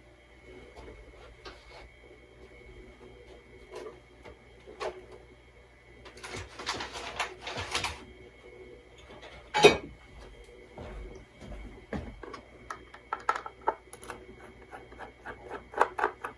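Small hard parts being handled during disassembly: scattered clicks, a scraping rattle in the middle, one sharp knock, then a quick run of clicks near the end.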